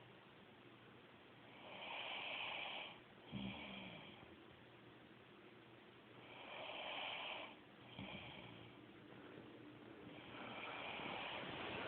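A woman snoring in her sleep: three slow breaths about four seconds apart, each a long raspy breath followed by a short low rattling snort.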